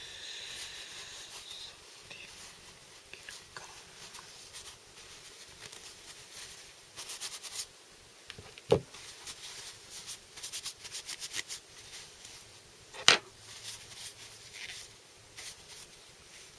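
Tissue paper rubbing and crinkling as the dirty halves of a split brake caliper are wiped clean, with clusters of short crackles. Two sharp knocks stand out, one about halfway through and another about four seconds later.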